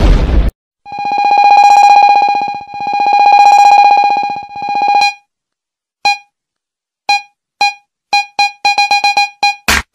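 Electronic dance music intro: one high synth note held in three swelling phrases, then short stabs of the same note coming faster and faster, building to heavy drum hits near the end.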